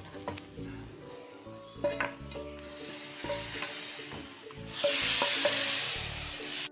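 Ghee tempering with mustard seeds, curry leaves, dried red chilli and chilli powder sizzling in a small nonstick pan as a wooden spoon stirs it. Near the end a much louder sizzle as the hot tempering is poured into the pot of sambar.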